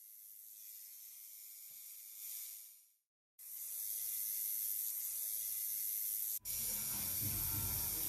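Pen-style tattoo machine running close up, heard as a steady hiss over a low hum, in edited pieces that break off about three seconds in and again, briefly, past six seconds; the last piece is louder and deeper.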